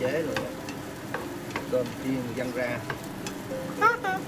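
Wooden spatula stirring and scraping diced sausage and pork roll in a hot frying pan, the food sizzling, with repeated clicks of the spatula against the pan. A short laugh comes near the end.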